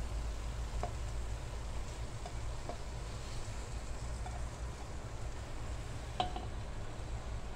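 Yellow plastic spatula scraping stir-fried beef, tomato and egg out of a nonstick wok onto a plate, with a few light knocks of the spatula on the pan, the loudest about six seconds in, over a steady low hum.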